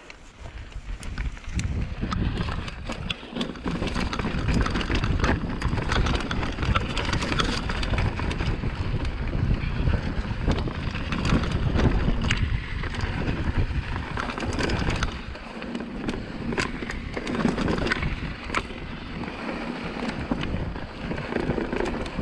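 Mountain bike descending a rocky downhill trail: tyres grinding over rock and loose gravel, with frequent sharp clatters and rattles from the bike, and wind buffeting the microphone. It swells from quiet over the first two seconds as the ride picks up.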